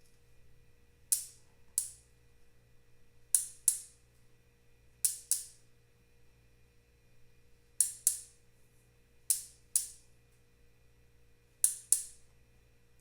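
Sharp clicks in pairs, six pairs spaced about two seconds apart at an uneven pace, over a faint steady hum.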